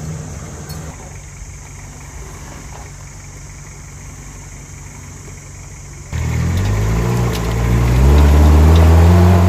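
Four-wheel-drive jeep engine running low and steady, then revving up suddenly about six seconds in. Its pitch climbs and holds high near the end, as if pulling on a climb.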